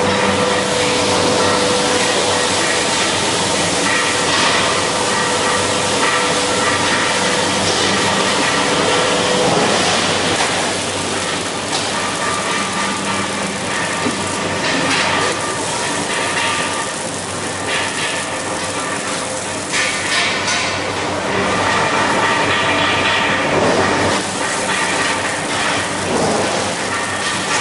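Automatic CNC welding machine's arc crackling and spitting as it lays a weld, over a steady machine hum.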